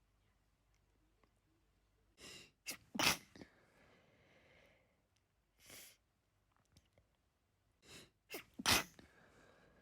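A person sneezing twice, each sneeze led by quick, sharp in-breaths as it builds up. The first sneeze comes about three seconds in and the second near the end, with a softer breath between them.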